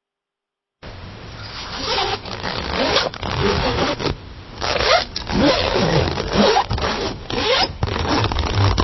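A zipper being zipped up and down in several quick strokes with short pauses between them, starting abruptly about a second in.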